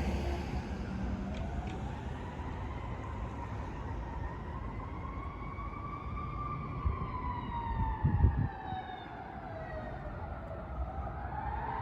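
Siren wailing, its pitch rising slowly, falling, then starting to rise again near the end. A short low thump comes about eight seconds in.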